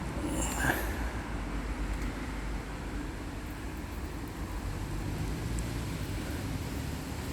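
Strong wind buffeting the microphone: a steady low rumble, with a brief rustle about half a second in.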